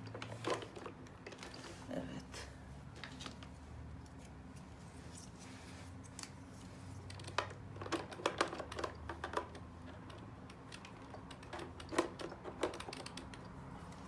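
Plastic clicks and taps from the main roller brush and its brush guard being fitted back into the underside of a robot vacuum cleaner. The clicks come scattered, in a quick cluster about halfway through and a few more near the end.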